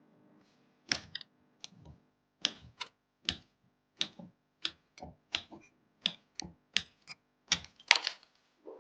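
A run of sharp, irregular clicks and taps, about two a second, from hard plastic and metal PC parts being handled and fitted.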